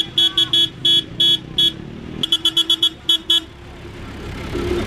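Car horn tooted in rapid short beeps, a dozen or so in two quick runs with a brief pause in between. Then the car's engine runs low and steady.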